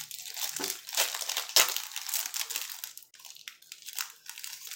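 Foil wrapper of a 2015 Topps football trading-card pack being torn open and crinkled by hand: a dense run of sharp crackles that thins out about three seconds in.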